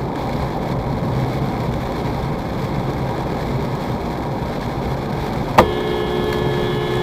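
Steady road and tyre noise inside a car driving on a wet highway, then, a little over halfway through, a car horn sounds one long, steady two-note blast of about two seconds.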